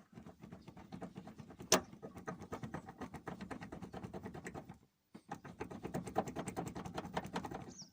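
Lada Kalina's right bonnet hinge knocking and rattling in quick, uneven succession, with one sharper knock near two seconds in and a brief pause about five seconds in. The knock comes from the rivet joining the hinge's two brackets, which has worked badly loose.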